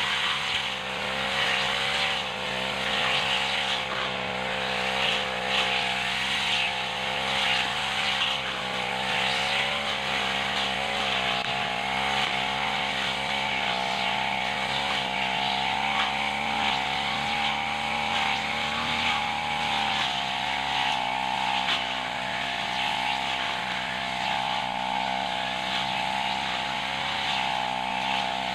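Backpack brush cutter's small petrol engine running at high speed as its cutting head mows through weeds and grass; the engine note wavers a little as the load changes.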